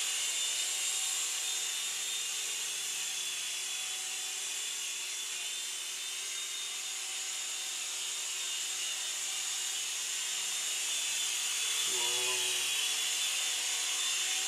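Syma S107 mini coaxial RC helicopter in flight, its small electric motors and rotors giving a steady high whine. The whine fades a little midway and grows louder again near the end as the helicopter comes back close.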